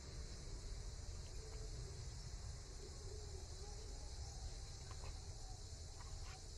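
Faint outdoor background: a steady high hiss over a low rumble, with a couple of faint clicks near the end.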